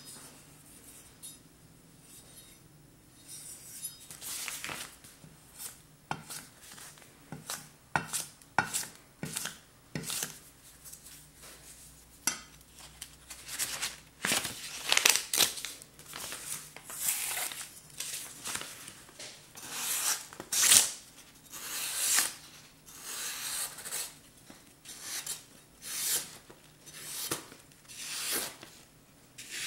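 Hand-forged knife slicing thin strips off a sheet of paper held in the air, a paper-cutting sharpness test. Each stroke is a short, crisp papery cut, with the rustle of the sheet between cuts and a few sharp ticks. The strokes start a few seconds in and come about once a second, louder and steadier in the second half.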